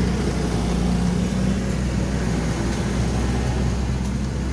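Excavator's diesel engine running steadily, a low even drone with no change in pace.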